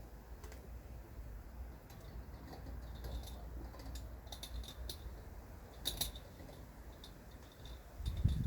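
Irregular light clicks and taps, a few at a time, over a low steady rumble, with a duller knock near the end.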